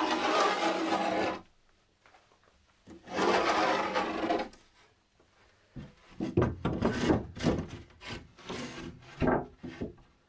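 A timber board scraping against a wooden shelf frame as it is slid into place: two long scrapes, then a run of short knocks and rubs as it is pushed and worked into position.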